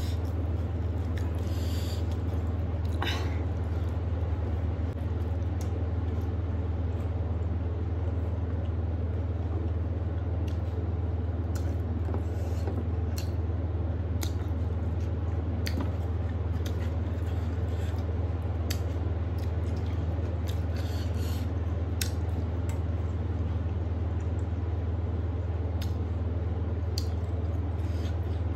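Fingers mixing rice and fish curry on a metal plate, with scattered soft squelches and small clicks of hand eating, over a steady low hum that is the loudest sound throughout.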